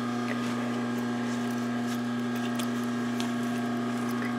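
Steady low electrical hum, with faint soft rustles and ticks of terry-cloth towel being handled.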